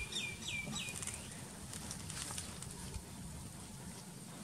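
A bird calls a quick run of four falling whistled notes in the first second, over low steady outdoor background with a few faint ticks.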